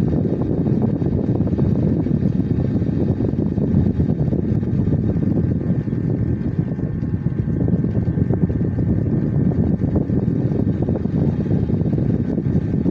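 A steady low rumbling noise, unchanging throughout, with no speech or music.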